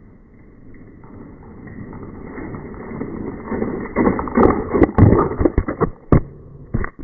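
Homemade rubber-band-powered toy car running, a rolling rumble that grows louder for about four seconds, then a quick run of loud clattering knocks.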